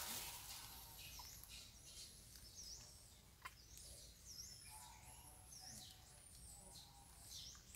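Faint birdsong: many short, high chirps and whistles, some dipping and rising in pitch, over a quiet outdoor background.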